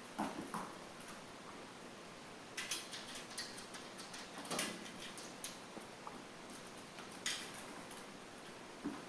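Miniature dachshund puppy making a handful of short, faint yaps and scuffling clicks, in separate bursts a second or two apart.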